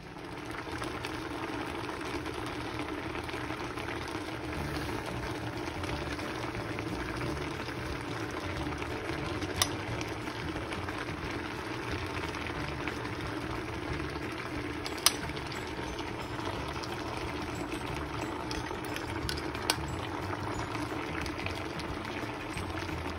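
A stainless pot of mackerel simmering on the stove, giving a steady bubbling hiss. A spoon clinks against the pot or bowl three times.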